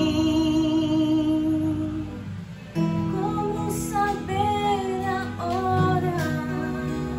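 Takamine acoustic guitar strummed as accompaniment to a woman singing a slow hymn. A long held note with vibrato opens, the music dips briefly about two and a half seconds in, then the next sung line comes in over the chords.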